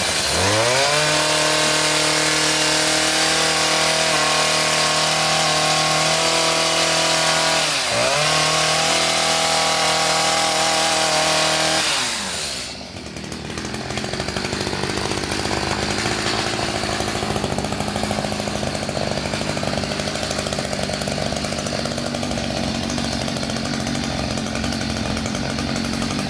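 Petrol two-stroke hedge trimmer engine running at high revs for about twelve seconds, dipping and picking up again briefly at the start and about eight seconds in. It then drops back to a lower, steady idle for the rest.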